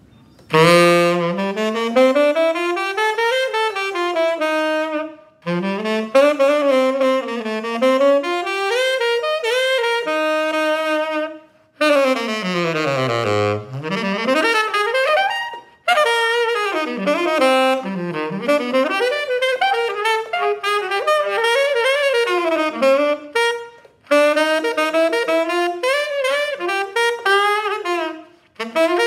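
1974 Selmer Mark VI tenor saxophone, freshly overhauled with its original resonators, played solo in six phrases with brief breaths between. Near the middle a quick run goes down to the horn's lowest notes and back up.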